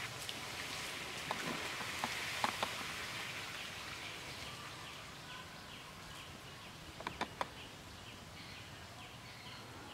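Outdoor ambience: a steady hiss with a few sharp clicks, a cluster of them past the middle. From about halfway on, a short chirping call repeats about twice a second.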